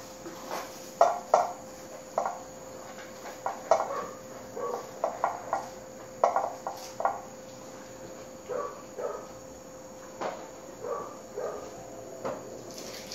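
Shih Tzus eating from their food bowls on a concrete floor: irregular clicks and clinks of teeth and food against the bowls, coming in loose clusters, with a faint steady tone underneath.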